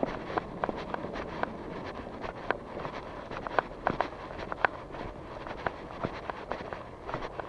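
Footsteps of a person walking at an even pace, a short click at each step, about two a second, over a steady background hiss.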